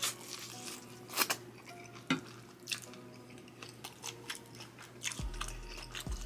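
Close-up chewing of a bite of corn on the cob, with wet smacks and scattered sharp crunchy clicks.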